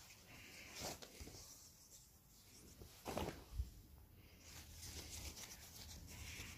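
Leather hides rustling faintly as they are handled and turned over by hand, in a few short swishes about a second in and around three seconds in, with a soft thump just after the second.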